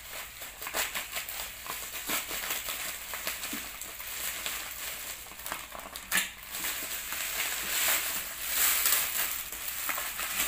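Plastic packaging crinkling and rustling as a double-wrapped parcel is cut open with scissors and unwrapped, with scattered sharp snips and crackles.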